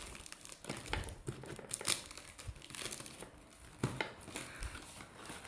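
Cardboard box being torn open by hand: packing tape ripping off and the cardboard flaps crinkling, in irregular crackles with sharper rips about a second in, at two seconds and near four seconds.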